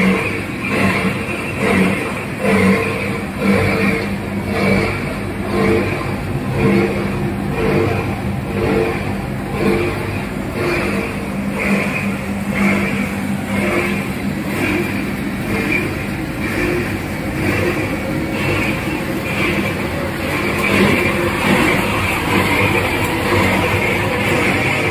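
Copper wire granulator running: its crusher, electric motors, blower fan and vibrating separator table make a steady mechanical noise with a hum and a regular pulsing.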